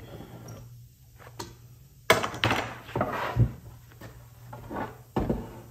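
A walnut board being turned over on a wooden workbench: a sharp knock of wood on wood about two seconds in, then scraping and thudding as it is handled, and another knock near the end.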